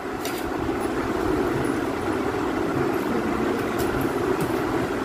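Steady mechanical whooshing hum, with a few faint clicks of forks on metal plates.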